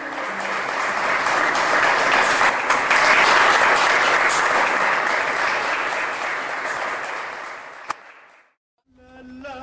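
Audience applauding, swelling over the first few seconds and fading out near the end, with one sharp click just before it stops.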